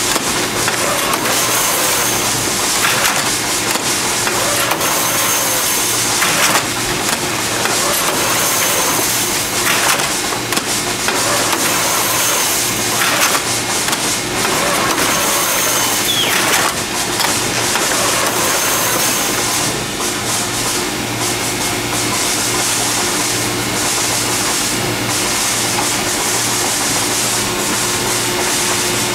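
Harris Gorilla 12/150 two-ram baler running: the steady hum of its hydraulic power unit under irregular crackling and crunching of material being compacted. The crunching fades out about two-thirds of the way through, leaving the steady hum.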